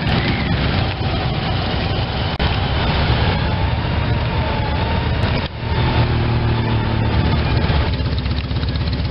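Engines of slow-moving vehicles driving past, a steady engine sound throughout, changing abruptly about five and a half seconds in. Near the end, a motorcycle's engine is heard from its own pillion seat while riding.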